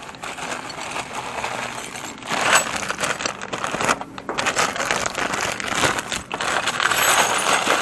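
Brown paper and a plastic bag crinkling as they are handled, with small metal parts clinking inside the bag.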